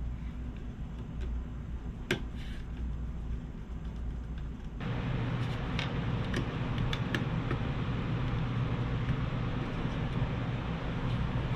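Scattered light clicks and taps of a small screwdriver and fingers working a fan and its connector inside a mini PC's metal case, over a steady low hum. About five seconds in, the background noise gets louder.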